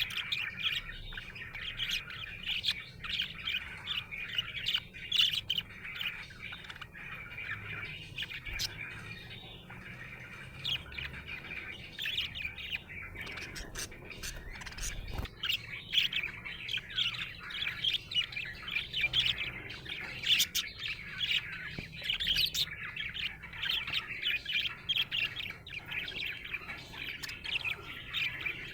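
Budgerigars chirping and warbling without pause, a busy chatter of quick chirps with sharper squawky notes mixed in.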